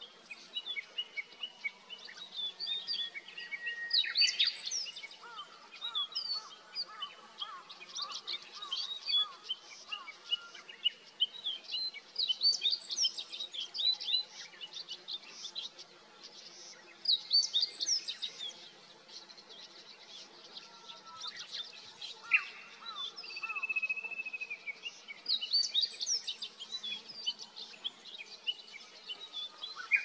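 Wild birdsong: a meadow bunting's rapid, high song phrases come back every few seconds, with other birds chirping in between, and one bird holds a short whistle about two-thirds of the way through.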